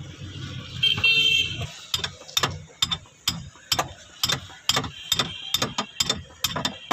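A brief high squeal about a second in, then a ratchet wrench clicking in even strokes, about two clicks a second, as bolts are undone to remove a manual steering assembly.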